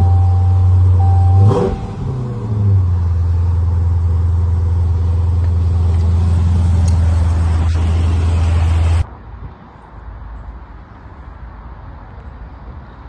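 Dodge Challenger engine running at a loud, steady idle while a door chime beeps. About a second and a half in, the engine gives a sharp rev that falls back to a steady idle. About nine seconds in, the sound cuts to a much quieter background.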